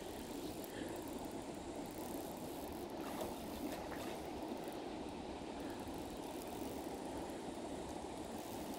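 Steady rush of river water running over rocks.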